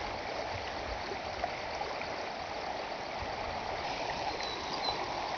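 Shallow, muddy flash-flood water rushing steadily down a gravel desert wash, at the rising start of a flash flood.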